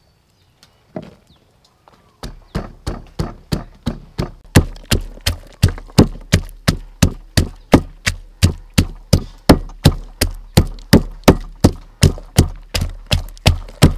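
Wooden pestle pounding garlic and red chilies in a wooden mortar: steady, even thuds at about three strikes a second, starting about two seconds in.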